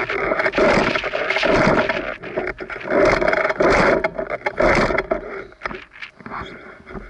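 Heavy, rhythmic breathing close to the camera's microphone, about one breath a second, growing weaker near the end.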